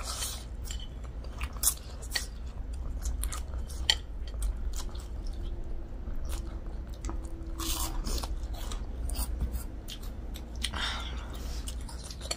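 Close-miked mukbang eating: noodles slurped and chewed, with crunching bites and many small wet mouth clicks, and a few longer slurps about 8 and 11 seconds in.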